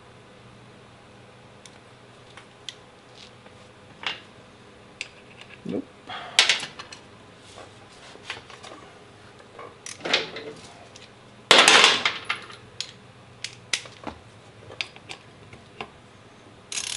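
Metal hand tools clinking and clattering as they are handled and set down during motorcycle brake caliper work: scattered single clicks, with a longer, louder clatter about two-thirds of the way in.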